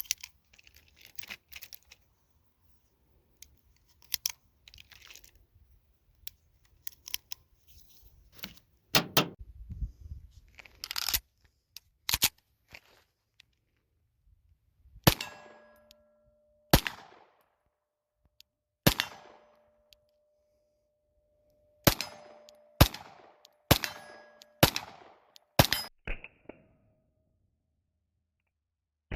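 Small clicks and handling noises, then about nine shots from a Rock Island Armory M1911 A2 Ultra Tac HC pistol. The first shots are spaced a second or more apart, the later ones come about one a second. A ringing tone lingers after several of them.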